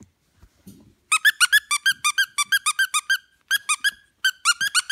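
Squeaker in a plush dog toy squeezed over and over by hand, about five short high squeaks a second, each bending up and down in pitch. The squeaking starts about a second in and breaks off briefly twice.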